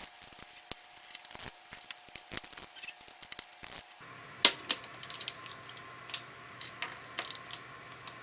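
Torque wrench tightening a bicycle's stem bolts: a series of small, irregular clicks, the sharpest about four and a half seconds in.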